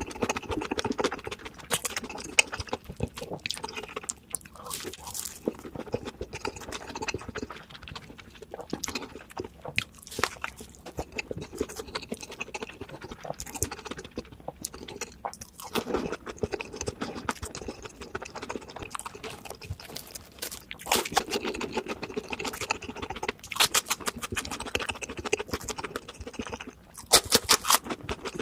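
Close-up chewing and crunching of crispy fried fast food, with irregular crackling bites and mouth sounds, louder near the end.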